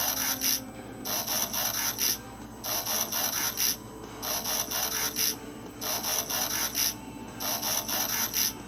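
Transformers-style mechanical transformation sound effect: a rasping, whirring burst about a second long, repeated about every one and a half seconds.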